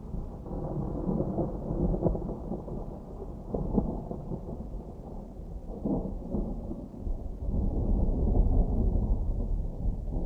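Distant thunder rolling in a low, muffled rumble, with two sharper cracks about four and six seconds in and a deeper, louder rumble building over the last few seconds.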